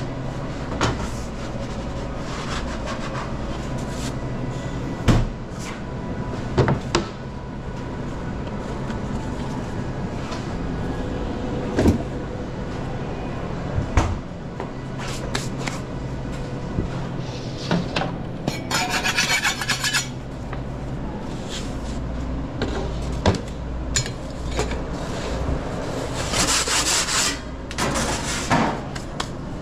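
Pizza-kitchen work sounds: scattered knocks and clicks of utensils, and two spells of rasping scraping, one about two-thirds of the way through and one near the end. A steady low hum runs underneath.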